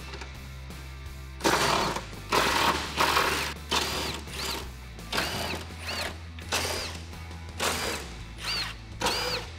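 Cordless impact driver with a 13 mm socket backing out the factory tire carrier's bolts in about ten short bursts, each with a motor whine that rises as it spins up and falls as it stops. Quiet background music runs underneath.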